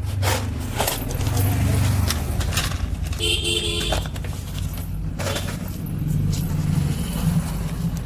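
An engine running with a steady low rumble and metallic rattling, with a short horn-like toot about three seconds in.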